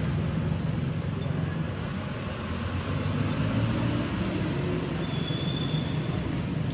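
Steady low rumbling background noise outdoors, with a faint brief high whistle about five seconds in.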